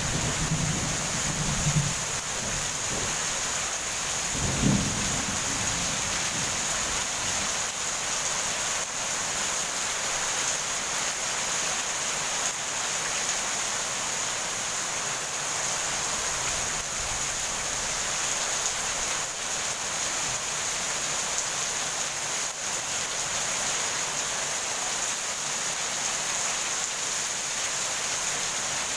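Heavy rain falling in a steady hiss, with thunder rumbling in the first two seconds and a shorter rumble about five seconds in.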